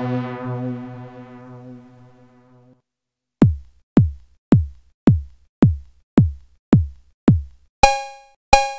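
DIY breadboard analog synthesizer: a held low buzzy note dies away over about three seconds. After a short gap a synthesized kick drum, a thud that drops quickly in pitch, repeats about twice a second, eight times. Near the end it changes to short, bright, cowbell-like metallic pings.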